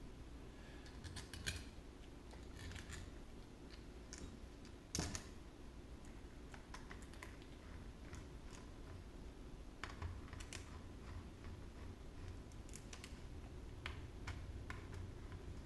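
Small, irregular clicks and taps of a screwdriver, screws and small parts against an airsoft gearbox shell as it is screwed shut, with one sharper click about five seconds in.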